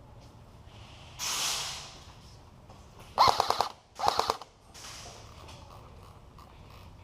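Airsoft guns firing two short bursts of rapid full-auto shots, one right after the other, about three seconds in. A brief hiss comes about a second earlier.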